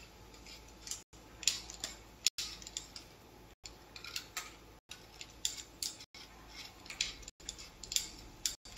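Faint, irregular scratchy strokes on paper, coming in short clusters.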